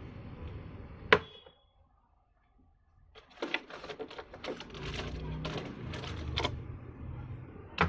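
A sharp click about a second in, then after a short hush a run of irregular clicks and knocks over a low hum, and one more click near the end, like the clatter of handling tools and wires on a bench.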